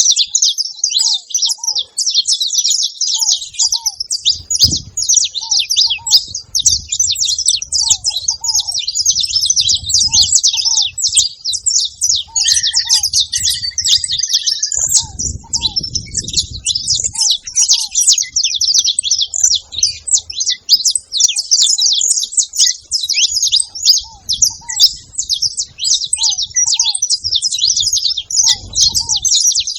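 A flock of saffron finches chirping and chattering all together, many short calls overlapping without a break.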